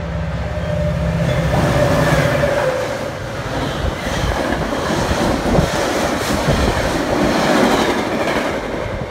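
Metra diesel commuter train passing at speed close by without stopping. A low locomotive engine drone is heard at first. Then come the rush and clatter of the stainless-steel bilevel cars' wheels over the rails.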